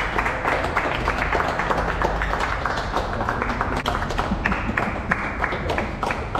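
A small group of people clapping and applauding, a steady patter of many hand claps.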